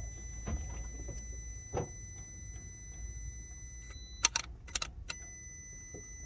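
High-pitched electric whine from a Cupra Leon PHEV's hybrid drive, a steady tone with several pitches layered over a low hum, which the owner singles out as a noise from the motor. It cuts out about four seconds in, among a few sharp clicks, and starts again a second later.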